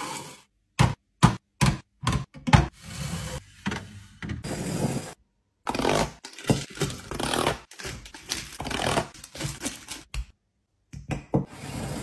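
Packaging being handled: a quick run of sharp knocks as plastic yogurt cups are set down, then long stretches of rustling and tearing as a cardboard box is opened, with a few more knocks near the end as bars go into a glass jar.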